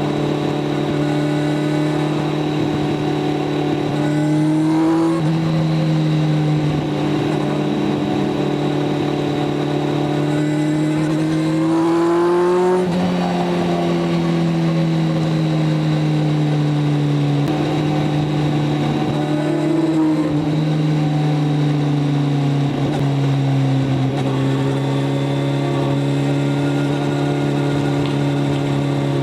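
Kawasaki inline-four sport motorcycle engine running at highway speed. Its pitch climbs twice, about five and about twelve seconds in, as the throttle is opened, and eases back down after each, with a smaller rise near twenty seconds.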